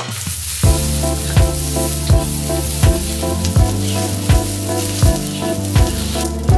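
Dried shrimp and minced garlic sizzling in hot oil in a wok, stirred with a spatula, under background music with a steady beat.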